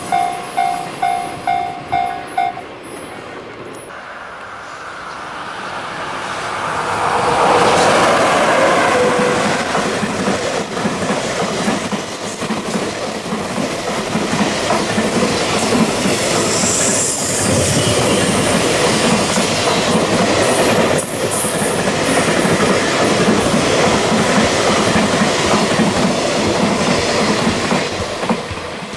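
Level-crossing warning bell ringing in even pulses, about two a second, stopping about two and a half seconds in. From about six seconds a long container freight train passes close by, with a steady rumble and the clatter of wagon wheels over rail joints, fading near the end.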